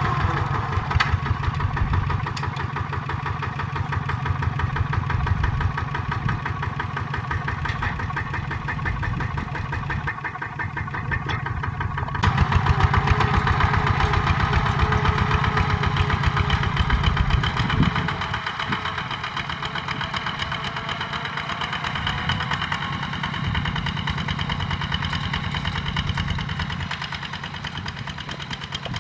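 Kubota ZT140 single-cylinder diesel engine of a two-wheel walking tractor, chugging steadily with an even run of firing pulses as it pulls a plough through the soil. The sound changes abruptly about twelve seconds in and fades a little near the end.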